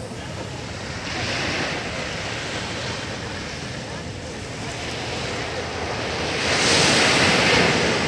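Small sea waves breaking and washing up a sandy beach. A smaller surge of surf comes about a second in and a louder one near the end, over wind rumbling on the microphone.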